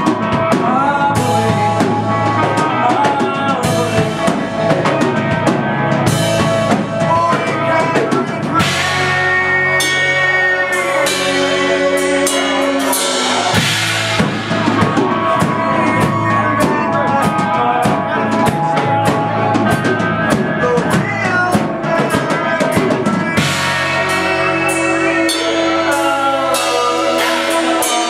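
Live rock band playing an amplified song: a drum kit keeping a steady beat with bass drum and snare, under electric guitar and keyboards.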